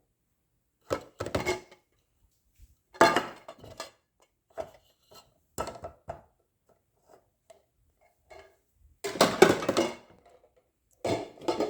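Intermittent clattering and knocking of hard objects being handled: a handful of separate bursts with silence between, the longest and loudest about nine seconds in.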